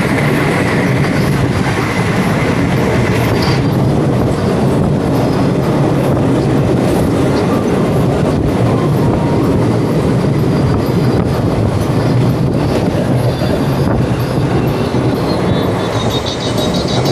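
Train running on the rails: a steady, loud rumble of wheels and carriages, with a high steady tone over it for the first three or four seconds that then stops.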